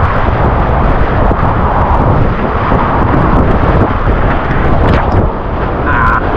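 Loud, steady rush of river whitewater.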